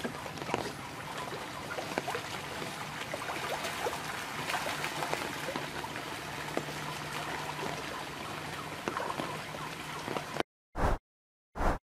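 Pangasius catfish splashing and thrashing at the water's surface while feeding in a pond, a continuous churning of water full of small splashes. It cuts off suddenly about ten and a half seconds in, followed by two short bursts of sound.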